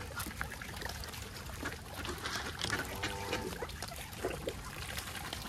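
Ducks and geese splashing and dabbling in shallow water, with many small clicks and a short bird call about three seconds in.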